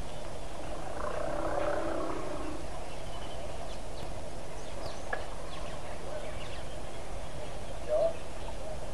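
Steady outdoor background hiss with scattered wild animal and bird calls: a longer, lower call about a second in, short high chirps in the middle, and a brief louder call near the end.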